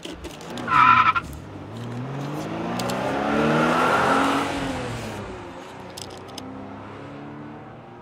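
Car sound effect: a short high-pitched squeal about a second in, then an engine note that rises and then falls in pitch and loudness, like a car driving past.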